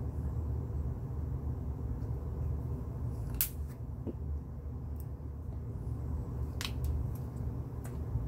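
Steady low room rumble with a few sharp clicks and taps, the clearest about three and a half seconds in, as small plastic acrylic paint bottles are handled and set down on a wooden table.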